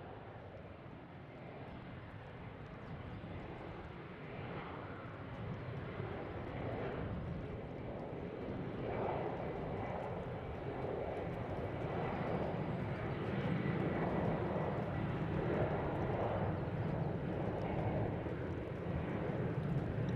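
Jet airliner's engines rumbling, growing steadily louder as the plane draws nearer.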